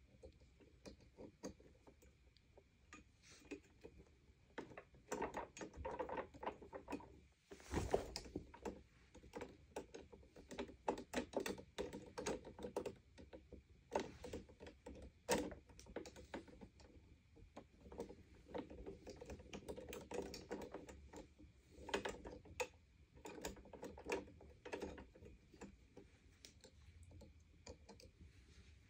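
Irregular clicks, taps and rustles of a Sanitaire upright vacuum's power cord and plastic handle fittings being handled and fitted by hand. A louder knock comes about eight seconds in.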